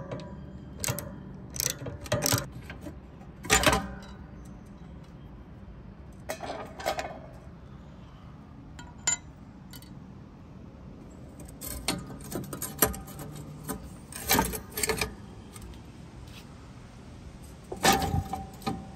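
Scattered metal clinks and knocks as rusty hinge bolts on a Big Green Egg's band hinge are loosened with a socket wrench and the loose bolts and nuts are set down on concrete pavers. The loudest knocks come about three and a half seconds in and near the end.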